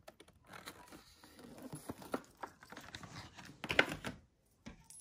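A can opener's plastic blister pack being handled: light crinkling and small clicks, with a louder cluster of knocks and rustles just before four seconds in.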